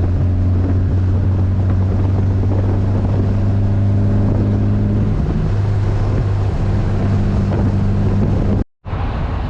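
1964 VW Beetle's air-cooled flat-four engine running steadily while driving, its note changing slightly about five seconds in. The sound cuts out abruptly near the end.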